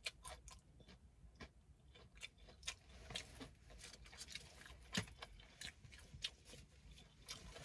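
Faint chewing of fried chicken, with scattered soft mouth clicks and smacks; the strongest comes about five seconds in.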